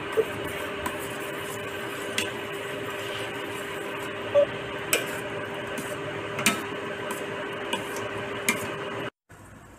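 Steel spoon stirring curd and grated bottle gourd in a stainless steel bowl, clinking against the bowl now and then over a steady background hum. The sound cuts off abruptly about nine seconds in.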